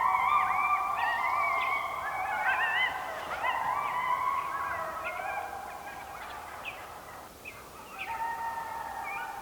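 A pack of three coyotes howling and yipping in long, overlapping, wavering calls, while wild turkey toms gobble back at them. The chorus dies down about seven seconds in and starts up again near the end.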